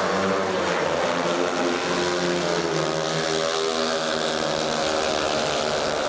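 Four 500cc single-cylinder speedway motorcycle engines running hard at high revs in a race, their overlapping notes shifting in pitch as the riders throttle through the bend and onto the straight.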